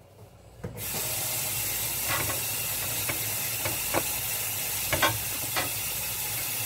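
A steady hiss switches on abruptly about a second in and runs on evenly, with a few light clicks and taps of handling over it.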